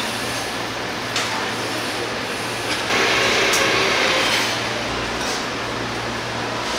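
Busy shop ambience: a steady low hum under a constant noisy wash, with a few sharp clicks and a louder hissing rush from about three seconds in that lasts over a second.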